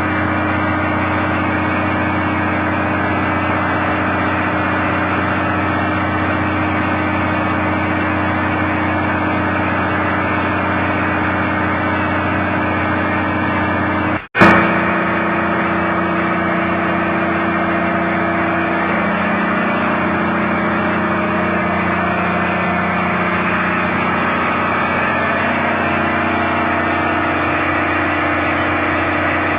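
Diesel engine running steadily at idle, with a brief dropout and sharp click about halfway through.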